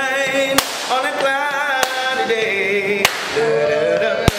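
Old-school R&B song playing: a singer holding long notes with vibrato over a sharp backbeat hit about every second and a quarter.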